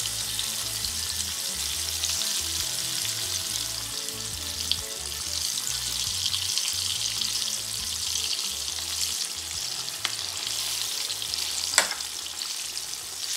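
Floured hake pieces frying in hot oil in a pot: a steady sizzle, with a sharp click near the end.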